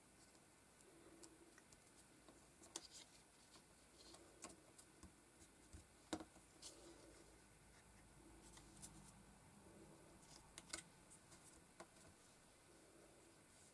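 Faint, scattered clicks and light scrapes of card jigsaw pieces being slid across a cutting mat and pressed together, with one sharper tap about six seconds in.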